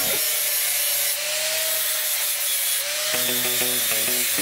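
Angle grinder with an abrasive disc grinding a rusty steel spanner: a steady grinding hiss over the motor's whine, which wavers slightly in pitch under load. Background music notes join about three seconds in.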